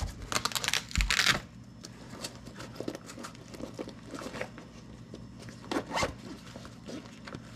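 Handling noise from a small plastic battery charger with its leads and little LiPo packs plugged in: a quick run of rustles and clicks in the first second and a half as it is set down on a cloth mat, then a few scattered faint clicks and taps.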